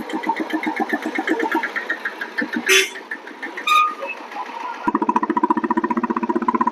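Diesel Royal Enfield Bullet motorcycle's single-cylinder engine running with an even, rapid pulse, after its diesel injection pump has been set; it becomes louder and steadier about five seconds in. Two brief sharp noises cut in around the middle.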